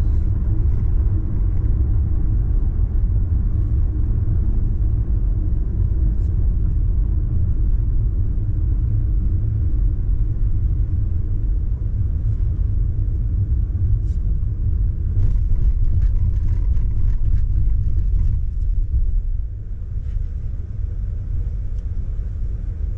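Low, steady road and tyre rumble inside the cabin of a Mercedes-Benz S500 cruising on a motorway. The rumble eases near the end as the car slows.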